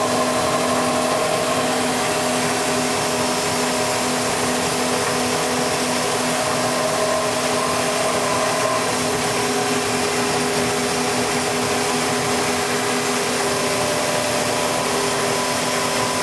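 Small CNC router spindle running steadily as its cutter engraves a cylindrical workpiece turned on a rotary axis. It makes a continuous whine with several held tones that shift slightly in pitch part-way through.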